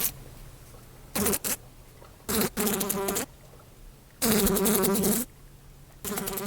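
A fly buzzing against a window pane in short bursts with pauses between them: about six buzzes, the longest lasting about a second near the middle.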